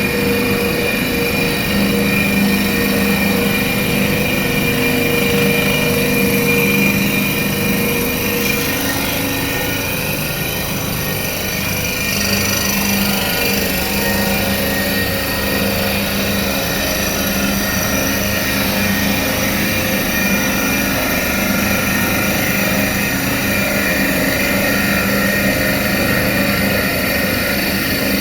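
CNC turning lathe running: a steady machine hum with several held tones over a dense mechanical noise, dipping slightly about a third of the way in.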